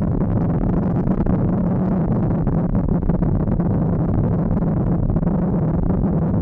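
Yamaha XT1200Z Super Ténéré parallel-twin engine running at a steady cruise, mixed with tyre and gravel noise from riding on a loose gravel road, with faint ticks of stones throughout.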